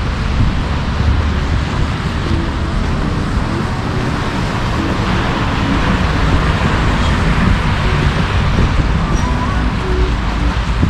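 City street traffic noise: a steady wash of passing cars with a low rumble, swelling in the middle as a vehicle goes by.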